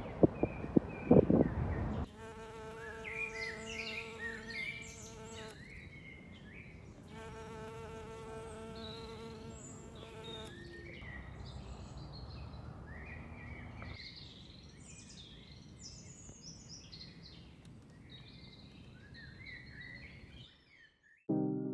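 A few sharp knocks at the start, then a flying insect buzzing past in two stretches of about three seconds each, a steady hum. Small birds chirp and sing throughout.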